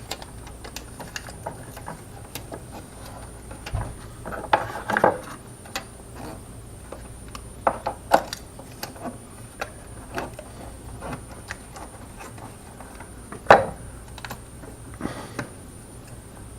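Aluminized foil tape being peeled, torn and pressed around a metal vent pipe: scattered crinkles and small clicks, with a few louder crackles, the sharpest one near the end.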